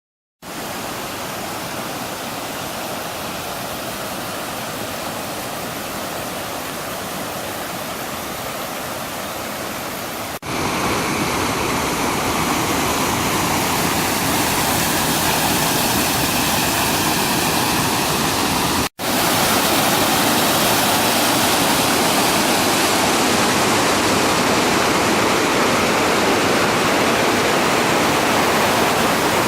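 A river swollen by typhoon rain rushing in flood, a steady, loud wash of water noise. It jumps louder about ten seconds in, and again after a brief dropout about nineteen seconds in.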